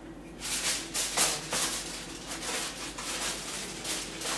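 Aluminium foil crinkling and rustling in quick, irregular bursts as a sheet is pressed over a disposable foil roasting pan.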